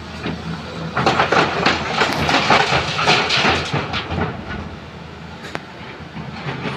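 Volvo excavator dumping a bucket of broken stone into a steel dump-truck body: a loud clatter of rocks from about one second in until about four seconds, then the diesel engines running.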